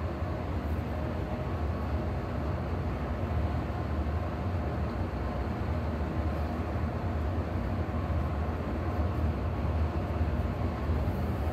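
Steady low hum and rumble of background machinery, unchanging throughout.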